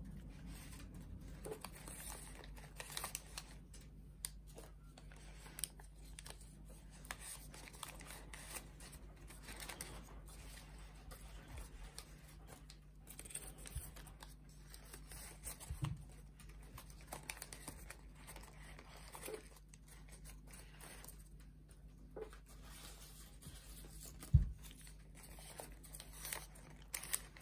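Folded origami paper units rustling and crinkling as they are handled and slotted together into a kusudama ball, with scattered small paper clicks. A single sharper knock near the end.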